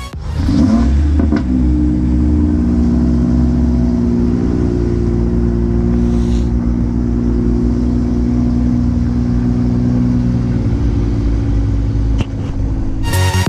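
A car engine revs once, its pitch rising and dropping back about a second in, then idles steadily with a deep, even note. The idle breaks off briefly near the end.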